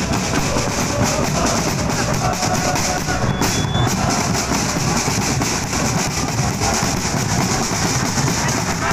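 A supporters' drum section beating large bass drums and snare drums with sticks and mallets in a fast, steady, continuous beat.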